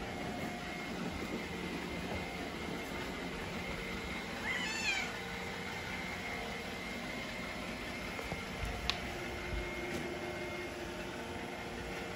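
A cat meows once, a short high meow that rises and then falls in pitch, about halfway through. A single small click comes a few seconds later.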